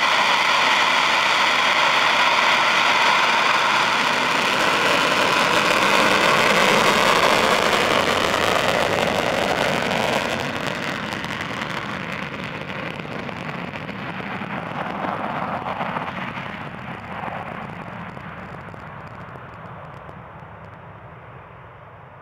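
Panavia Tornado's twin RB199 turbofans running on full reheat through the take-off roll: a loud, steady jet roar that begins to fade about ten seconds in and dies away gradually as the jet climbs out.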